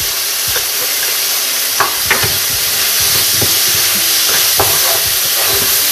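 Diced vegetables sizzling in hot oil in a frying pan, with a spatula stirring and scraping against the pan a few times.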